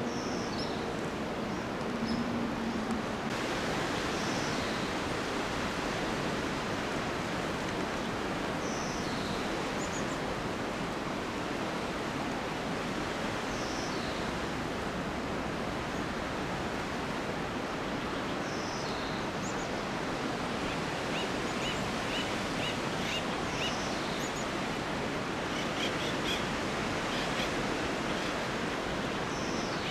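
Steady wind through Monterey pine trees. A bird gives short high calls every few seconds, with a quick run of chirps about twenty seconds in.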